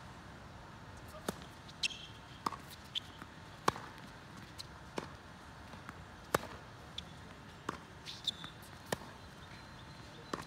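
Tennis rally: sharp pops of a tennis ball struck by rackets and bouncing on the court, about a dozen in ten seconds, the two loudest near the middle. A couple of short high squeaks come in between.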